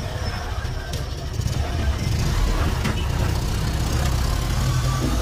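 Motorcycle engine of a tricycle running as it rides along a road, heard from inside the sidecar, with a steady low rumble and road noise that grows a little louder about two seconds in.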